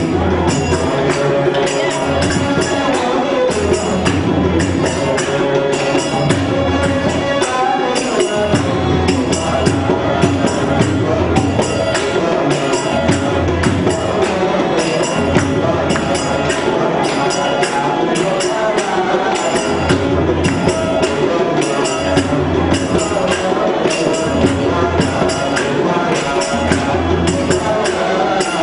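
Live devotional dance music: a harmonium and a hand drum playing a steady, fast beat, with bright jingling percussion on every stroke.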